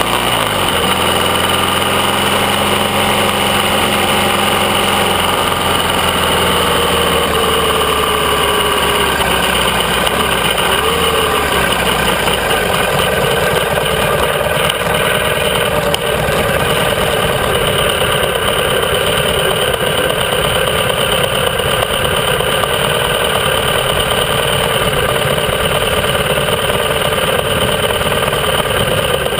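Classic motorcycle engine heard close up from the machine itself: its note falls as the bike slows about a second in, then it runs low and steady at walking pace and idling as the bike comes to a stop.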